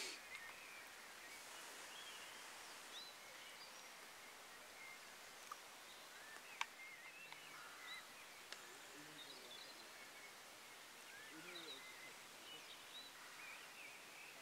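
Quiet outdoor background of faint hiss with scattered, faint bird chirps. There are a couple of light, sharp clicks about halfway through.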